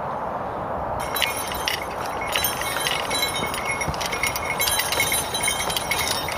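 Metal horse harness and chains jingling and clinking as a draught horse pulls a plough, starting about a second in, over a steady rushing background noise.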